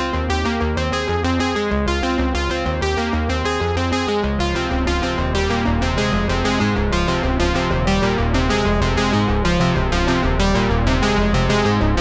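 Electronic background music: synthesizer and keyboard over a steady beat, with a fuller bass line coming in about four seconds in.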